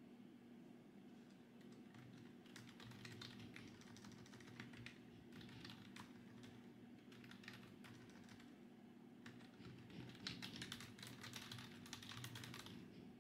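Quiet typing on a computer keyboard: runs of soft key clicks in bursts, starting a couple of seconds in, with the busiest flurry near the end.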